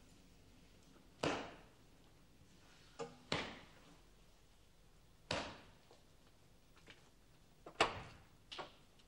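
Leather belt strokes in a strapping: about five sharp smacks roughly two seconds apart, the last two closer together.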